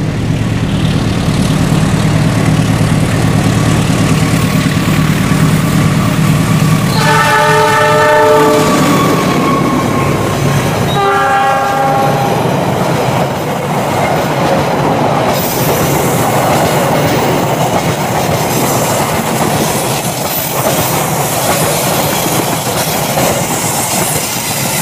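A diesel locomotive hauling an express passenger train passes close by with its engine running, and sounds two horn blasts, about seven and eleven seconds in. Then the coaches rumble past, wheels clattering over the track.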